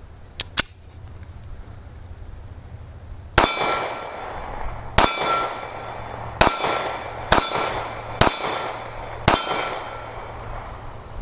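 Six 9mm pistol shots from a Kahr CM9, fired at an unhurried pace about a second or a second and a half apart, a full six-round magazine, each shot leaving a short ringing tail. A couple of sharp clicks come just before, about three seconds ahead of the first shot.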